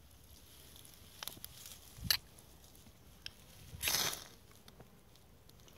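A knife spine scraped along a ferrocerium rod fire starter over dry grass tinder: a couple of light clicks, then about four seconds in a harder, longer scrape that throws sparks onto the tinder.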